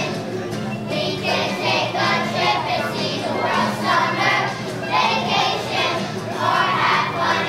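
A choir of young children singing a song together, with musical accompaniment.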